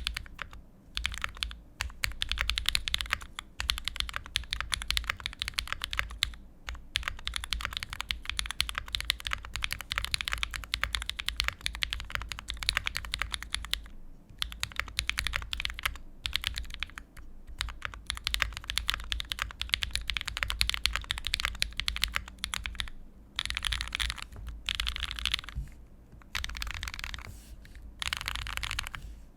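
Typing on a custom Constellation mechanical keyboard: gasket-mounted with an FR4 plate and case foam, Raed switches lubed with 204g0 and fitted with Durock films, and Zeal stabilisers. Fast, continuous keystrokes clacking, with a few brief pauses.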